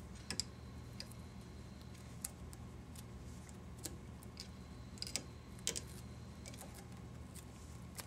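Faint, irregular small clicks and ticks from hands and tools working at a fly-tying vise as material is wrapped along the hook, over a low steady hum.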